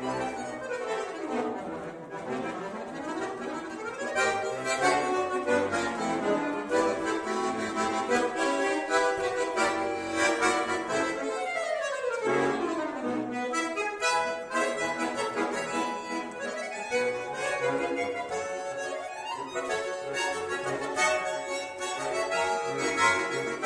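Solo bayan (chromatic button accordion) playing a lively, fast-moving piece, with a quick run sweeping down in pitch about halfway through.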